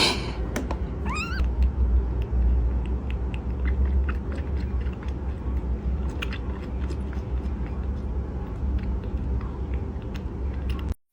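A kitten gives one short mew about a second in, rising then falling in pitch. Under it runs a steady low rumble, with scattered small clicks.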